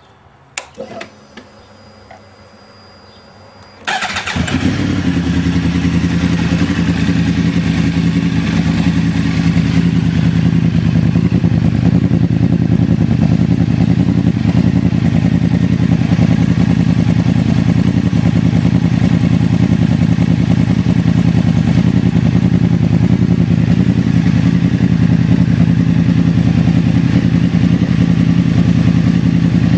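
2009 Yamaha YZF-R1's crossplane inline-four, fitted with GYTR slip-on mufflers, starts up suddenly about four seconds in, after a few clicks and a faint steady whine. It then idles steadily.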